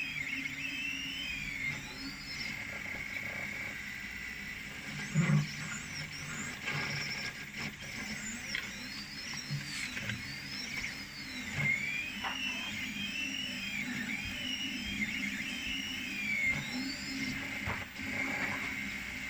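A 3D printer's stepper motors whining as the print head moves, the pitch sliding up and down in overlapping glides with each change of speed and direction. A short thump about five seconds in is the loudest moment, with a few lighter knocks.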